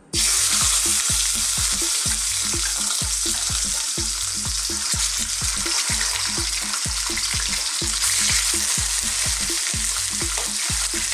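Pieces of tulingan (tuna) frying in hot oil in a wok: the sizzle and spatter start abruptly as the first piece goes in, then hold steady and loud.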